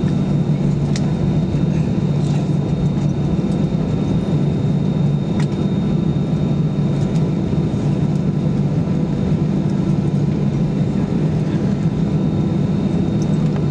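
Cabin noise inside an Airbus A320-214 taxiing after landing, its CFM56 engines at idle: a steady low hum with a faint constant high tone and a few light rattles.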